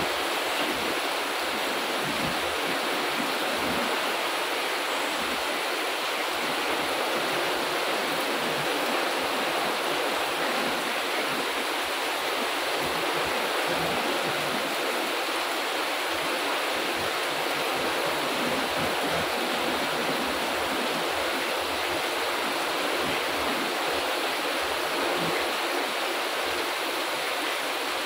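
Heavy tropical rain pouring steadily on garden plants and wet paving: a dense, even hiss of drops with no let-up or thunder.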